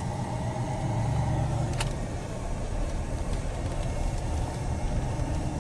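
A truck driving, heard from inside the cab: a steady low engine and road rumble, with one short click about two seconds in.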